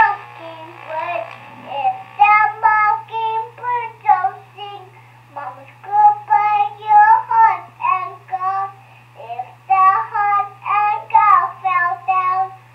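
A child singing, heard through the speaker of a Fisher-Price baby monitor receiver, in short sung phrases with brief pauses between them. A steady low hum runs underneath.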